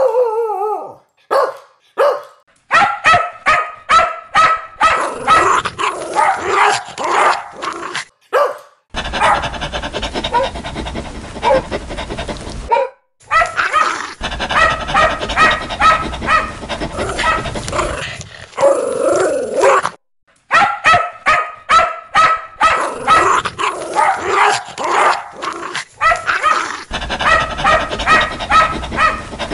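Dogs barking loudly and repeatedly in long, dense runs of barks, with short breaks every few seconds.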